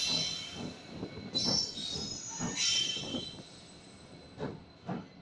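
Passenger train drawing slowly into a station behind a WDP4B diesel locomotive: its steel wheels squeal on the rails as the coaches roll past, with a few sharp knocks near the end, and the sound grows quieter as the train slows.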